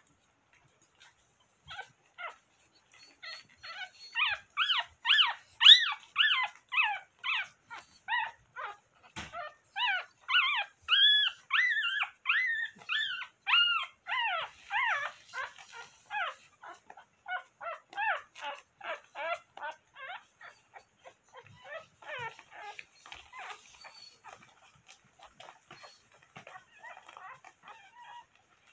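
Newborn Coton de Tulear puppies squealing in a long run of short, high-pitched cries, about three a second, loudest in the first half and tapering off near the end.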